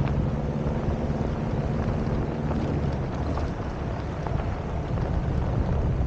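Wind rushing over a roof-mounted microphone and tyres rolling on a gravel dirt road as a car drives along, with small scattered clicks of stones. A low steady engine hum sits under it and fades about two and a half seconds in.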